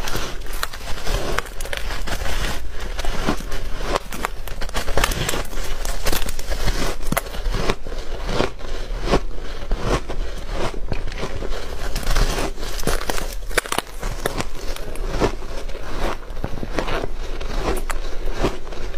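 Close-miked biting and chewing of a crisp layered cake of refrozen shaved ice: a dense, continuous run of sharp crunches and crackles as the ice breaks between the teeth.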